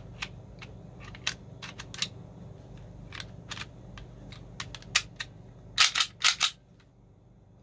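Gas-blowback airsoft pistol with an aluminium slide being handled: a string of sharp small clicks and taps from its slide and frame parts, then a quick cluster of louder clacks about six seconds in. A low steady hum lies underneath.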